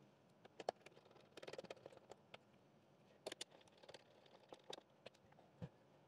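Faint, scattered light clicks, taps and brief rustles of plastic robot-vacuum parts being handled on a table.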